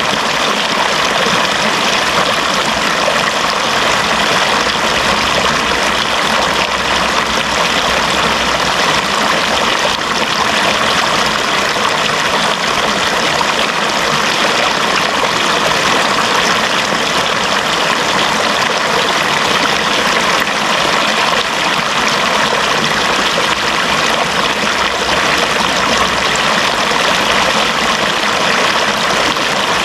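Running water flowing steadily, an even, unbroken rush of water noise with no changes.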